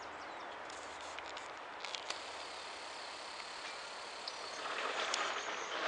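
Fork-tailed flycatchers giving scattered short, sharp calls, over a steady background hiss that grows louder about four and a half seconds in.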